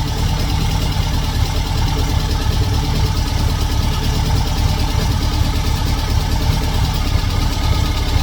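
The air-cooled 2110cc flat-four engine of a 1979 VW Super Beetle idling steadily.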